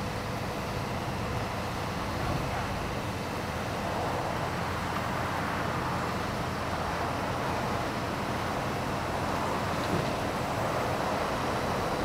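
Diesel engines of asphalt paving machinery, a road paver and asphalt trucks, running steadily. The noise gets slightly louder about four seconds in.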